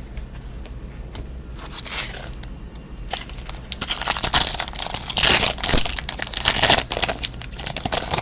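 Foil trading-card pack wrapper being torn open and crinkled by hand: scattered crackles at first, then dense crinkling and tearing over the last five seconds or so.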